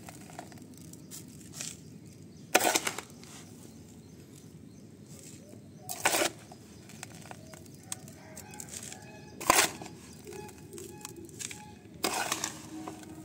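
Sandy potting mix poured into a small plastic pot over gravel in four separate dumps, each a short rustling pour.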